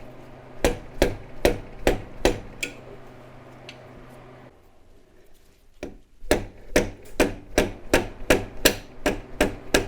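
A mallet striking a socket wrench in quick, even blows, about two to three a second, pausing for about three seconds midway and then resuming, to break loose a stuck A/C belt adjustment bolt on a 1977 Corvette's small-block engine.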